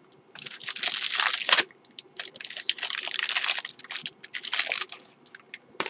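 Paper wrapping crinkling and rustling in irregular bursts as a cut bar of soap is unwrapped by hand.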